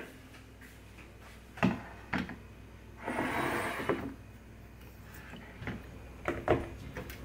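Kitchen handling sounds on a hard countertop: a wire basket of passion fruit set down and the fruits lifted out, giving several sharp knocks and a scuffing noise lasting about a second near the middle.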